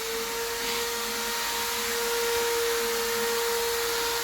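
A small electric motor running at a steady speed, a steady whine over a hiss, as from a power tool or shop vacuum in the workshop.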